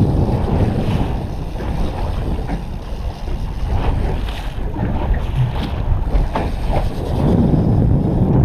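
Wind rumbling on the microphone over the steady water and hull noise of a small fishing boat, with a few short clicks partway through.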